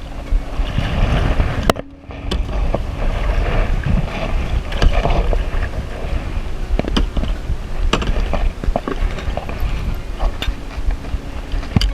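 Wind rumbling on the microphone while out on a kayak, with a handful of sharp knocks and a brief drop in level about two seconds in.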